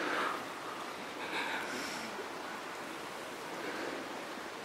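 Steady outdoor background hiss in the stand, with a soft rustle right at the start.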